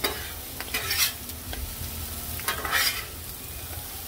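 Sliced peppers and onions sizzling on a Blackstone flat-top griddle while a metal spatula scrapes and tosses them across the steel, with three louder scraping strokes over a steady sizzle.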